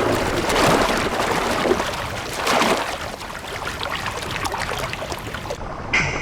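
Water splashing and churning, loudest in the first three seconds, with a dense crackle of small splashes.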